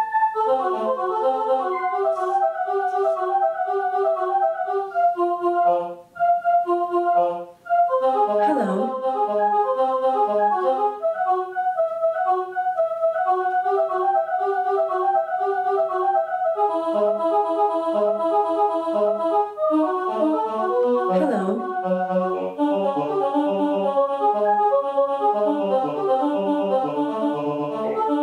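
Live electronic music: a fast, busy stream of short pitched synthesizer-like notes in overlapping patterns, cutting out briefly twice early on. Twice, about a third of the way in and again near three-quarters, a sweeping glide in pitch cuts through the notes.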